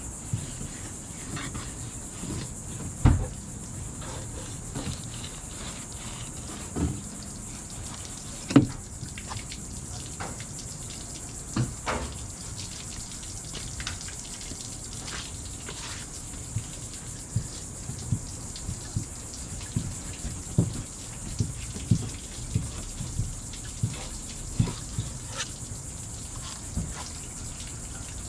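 Knife cutting through a raw tuna loin on a plastic cleaning table, with scattered knocks and taps of the blade and hands on the board, two louder knocks about 3 and 8 seconds in. Behind it, a steady high hum of insects such as crickets.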